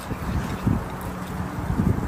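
Wind buffeting the microphone: a low rumble with stronger gusts just under a second in and near the end, under a faint steady low hum.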